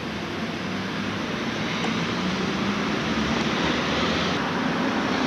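Road traffic noise: a steady rush that grows gradually louder as a vehicle approaches.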